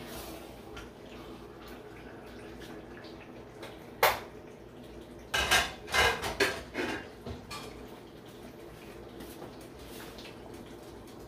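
Aluminium cooking pots and their lids clanking as they are handled on the stovetop: one sharp clank about four seconds in, then a quick run of clatters over the next two seconds.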